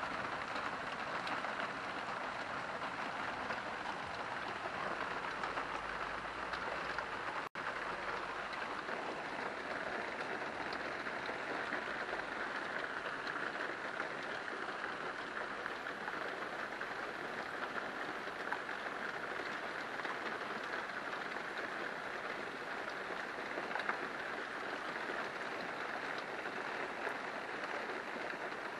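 Steady heavy rain falling: a dense, even hiss of drops with no let-up. It cuts out for an instant about seven and a half seconds in.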